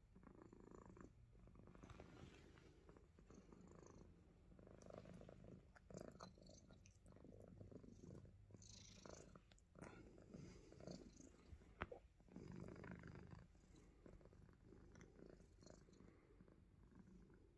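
Himalayan Persian cat purring faintly and steadily, the purr swelling and fading, with a few short clicks.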